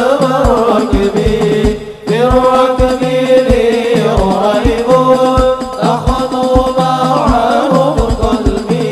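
Group of men singing an Arabic devotional chant (sholawat) together through microphones, in long held and ornamented notes, over a regular low drum beat.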